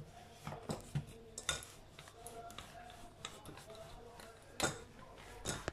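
Scattered soft taps and knocks of hands, pizza dough and a wooden rolling pin on a floured granite worktop as the dough is stretched and turned, loudest about a second and a half in and again near the end.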